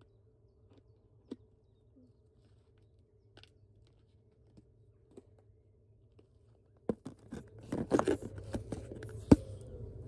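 Close handling noise: near silence with a few faint ticks, then from about seven seconds in a run of clicks, scrapes and rustling that grows louder.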